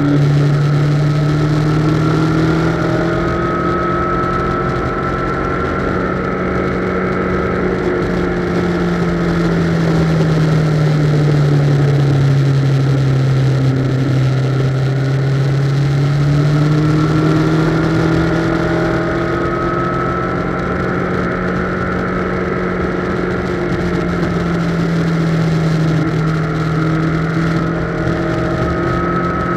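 Yamaha XJR's air-cooled inline-four engine running at road speed, its note slowly falling about halfway through and rising again as the throttle is eased and opened, over a steady rush of wind.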